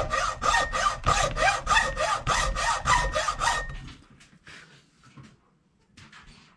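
Hacksaw blade cutting into a hickory hammer handle in quick, even back-and-forth strokes, about four a second. The sawing stops a little under four seconds in, leaving a few faint scrapes.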